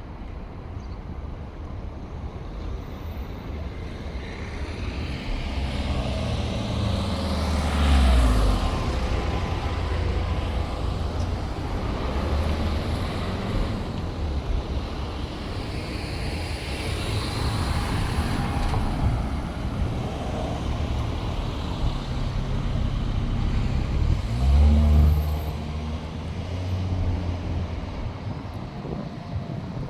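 Street traffic: motor vehicles driving past one after another, with the loudest passes, a heavy low rumble, about a quarter of the way in and again near the end.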